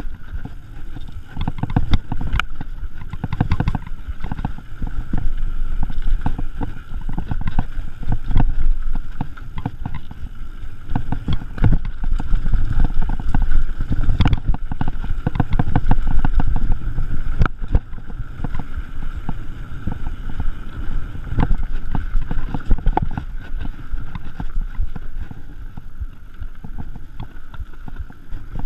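Mountain bike ridden fast down a dirt trail: a continuous rumble of tyres on dirt with dense, irregular rattling and clatter of the bike over bumps.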